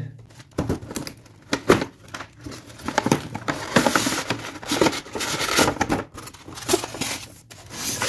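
Cardboard toy box being opened and a toy car pulled out of its foam packaging: irregular tearing, crinkling and rubbing of the packaging, with scattered clicks and knocks.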